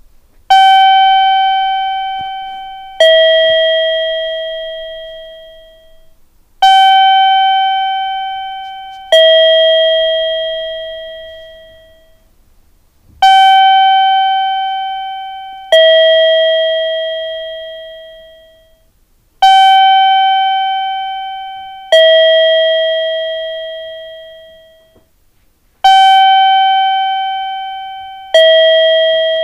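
Two-note 'ding-dong' station guide chime of the kind sounded at Japanese railway ticket gates to guide visually impaired passengers: a higher electronic bell note, then a lower one, each left to ring and fade. The pair repeats about every six seconds, five times.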